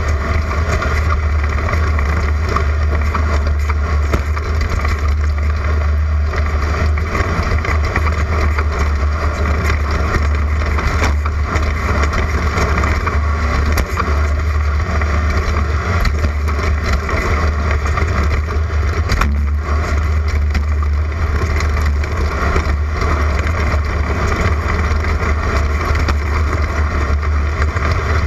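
Class 11 off-road race car, a stock air-cooled Volkswagen Beetle with a flat-four engine, driving hard: a steady, deep engine drone, with frequent small knocks and rattles from the car over rough ground.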